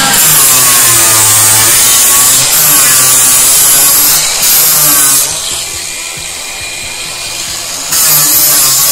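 Cordless angle grinder with a sanding disc grinding the plywood chine edge of a wooden dory hull, its pitch bending as the pressure on the disc changes. It eases off briefly twice, drops much quieter for a few seconds past the middle, then bites in again near the end.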